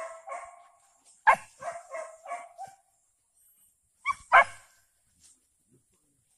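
Young hunting dogs barking and yipping: a few high yelps, a quick run of short barks, then two sharp, loud barks about four seconds in.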